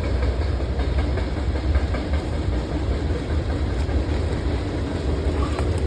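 Small boat's outboard motor running steadily at low speed, a constant low rumble with faint rattles over it.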